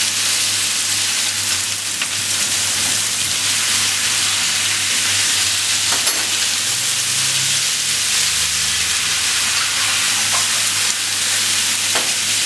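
Diced root vegetables sizzling steadily in hot oil in a stainless-steel tilting kettle while its built-in stirrer paddle turns them. A steady low hum runs underneath.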